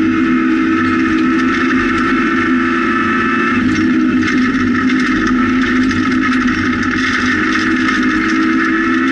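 Rally car's engine running hard at fairly steady high revs, heard from inside the cabin, with a constant patter of gravel clicks and tyre noise from the loose road surface.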